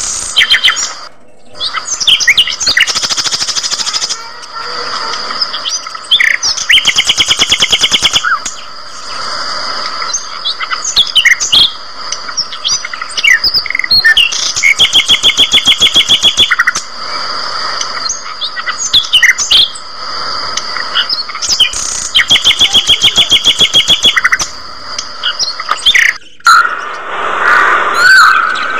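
A flock of budgerigars chirping and chattering, with a rapid train of chirps lasting about two seconds repeated four times.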